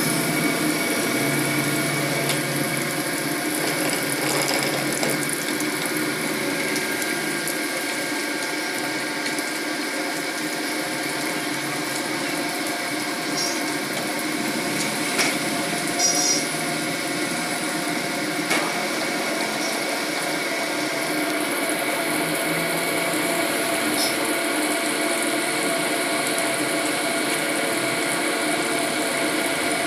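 Crank grinding machine running, its wheel grinding the worn bush journal of a submersible motor rotor shaft down to size under flowing coolant. It makes a steady mechanical hum with many steady tones and a hiss, with a few short clicks around the middle.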